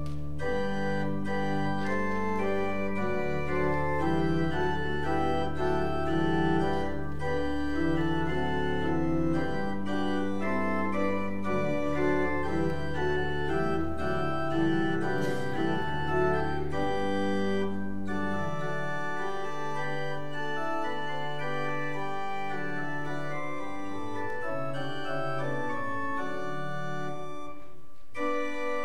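Church organ playing slow, sustained chords over long low pedal notes; the pedal bass drops out about two-thirds of the way through, leaving only the upper chords.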